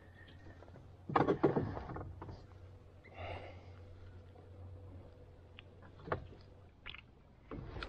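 Handling noises from unhooking a small bluegill by hand: a loud rustling clatter about a second in, then scattered light clicks and knocks.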